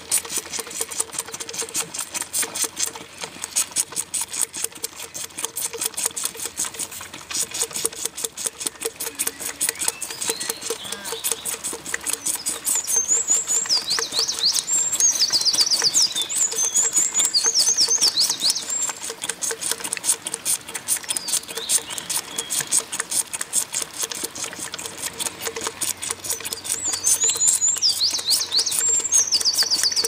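Lamb sucking milk from a feeding bottle, in quick rhythmic pulls and sucks. Birds sing in the background for a few seconds in the middle and again near the end.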